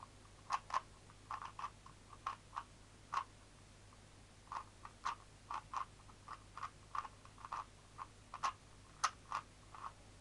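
Rubik's speed cube being turned quickly during a solve: irregular plastic clicks of the layers, several a second with brief pauses, from a freshly lubed cube.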